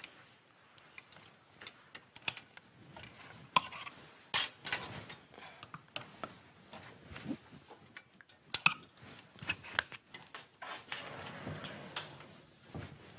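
Clothes hangers clicking and clattering on a wardrobe rail as garments are pulled off, with a few sharper knocks and fabric rustling near the end.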